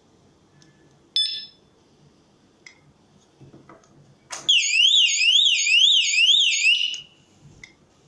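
Mobile phone security display alarm host's electronic siren, loud repeated rising whoops at about two and a half a second, sounding for a couple of seconds and then cutting off suddenly. A short high electronic beep comes about a second in.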